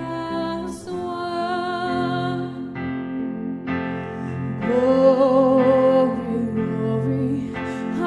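Slow live worship song: female vocals with held, wavering notes over keyboard and acoustic guitar. The singing swells louder about halfway through.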